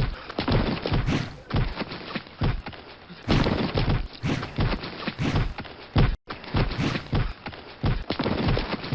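A steady run of dull thumps, about two a second, with a brief cut-out about six seconds in.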